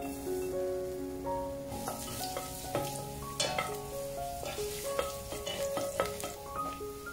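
Chopped garlic sizzling in hot ghee in a stainless steel pan, the sizzle strengthening about two seconds in, with a spoon stirring and clicking against the pan several times. Background music plays underneath.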